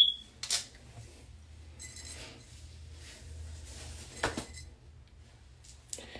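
Four short, sharp clicks and clinks of hard objects, the first and loudest with a brief high ring, over a low steady hum.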